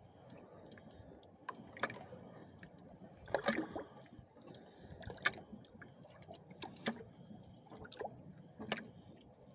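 Water lapping and slapping against a boat's hull: small irregular splashes, one every second or two, over a low steady wash.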